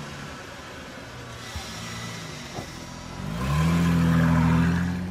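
Car engine revving as a logo sting: short rising revs early on, then a climb about three seconds in to a loud, held high rev that eases off near the end.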